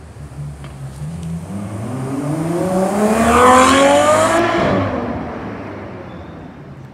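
Ferrari 812 Superfast's naturally aspirated V12 accelerating hard in one long pull, its pitch rising steadily and loudest about three and a half seconds in. The sound then fades as the car moves away.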